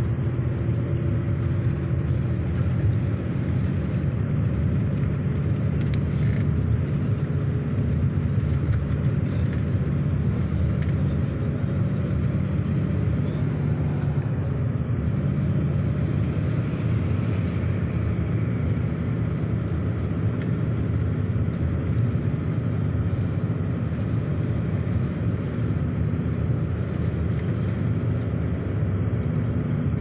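Steady rumble of a vehicle driving along a road: engine hum and tyre noise.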